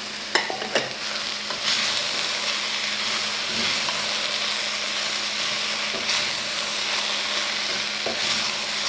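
Chopped cabbage and grated vegetables sizzling in a hot pot of oil and butter with fried chicken cubes, stirred with a spoon; a steady hiss, with a couple of light clicks from the spoon just after the start.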